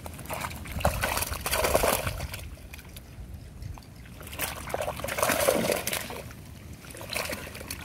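Water splashing and sloshing as a mesh net bag holding live fish is dragged and dipped into shallow water at the bank. It comes in two main spells, one about a second in and one about halfway through, with a smaller splash near the end.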